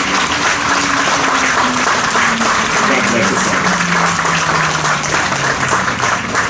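An audience applauding: steady, dense clapping from a seated crowd.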